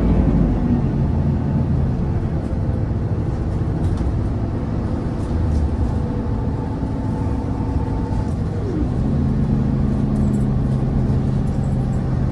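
City route bus under way, its engine and road rumble heard from inside the passenger cabin. The engine note glides down about two-thirds of the way through, then holds steadier.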